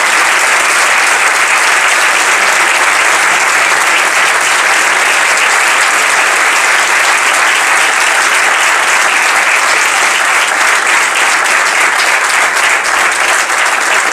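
Audience applauding steadily, a dense continuous clapping, with single claps standing out a little more toward the end.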